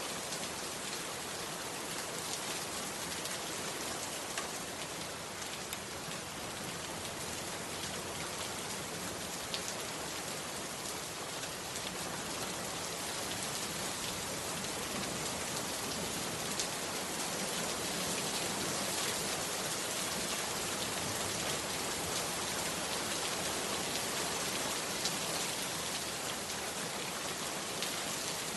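Heavy rain falling steadily, a dense wash of sound full of fine drop ticks, swelling slightly partway through.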